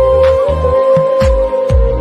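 Background music: a held, wavering melody line over a steady beat of deep drum hits and sharp percussion strokes.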